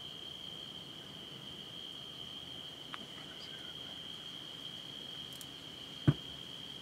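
A chorus of night insects, a steady high-pitched drone. A single short thump, the loudest sound, comes about six seconds in.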